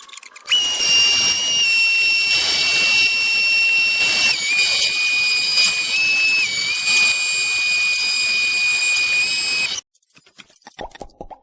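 Power tool running with a high-pitched whine, its pitch dipping and recovering slightly a few times as it works; it starts about half a second in and cuts off suddenly near the end.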